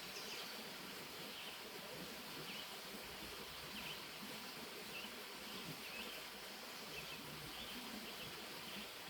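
Faint outdoor ambience: a steady hiss with short, high chirps every second or so.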